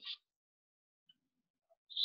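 Near silence: a brief pause in a lecturer's speech, with the tail of a word in the first moment and the next word starting at the very end.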